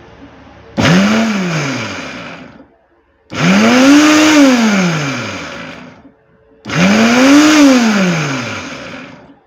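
Silver Crest SC-1589 blender motor run in three short pulses on a jar of water. Each time it whirs up in pitch and then winds down.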